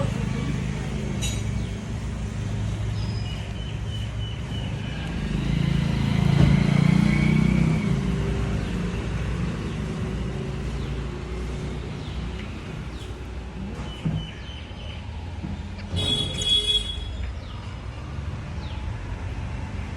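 Steady low rumble of road traffic, swelling for a couple of seconds about six seconds in. A brief, high-pitched buzzy call or toot comes about sixteen seconds in.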